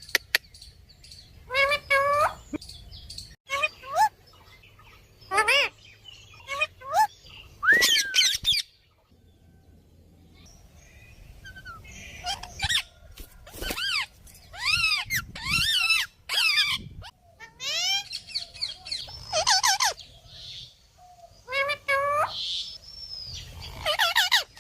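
Pet parrot calling and chattering in short, high-pitched calls, some sliding up in pitch, in bursts with short pauses between.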